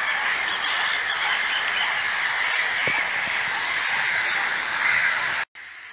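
A dense, steady chorus of bird calls, a high busy din with no single call standing out. It cuts off abruptly about five and a half seconds in and gives way to a much quieter background.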